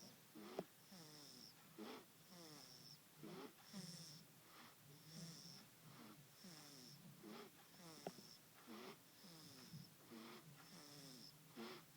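A sleeping baby snoring softly in an even rhythm, about one breath every second and a half, with a thin high whistle on each breath.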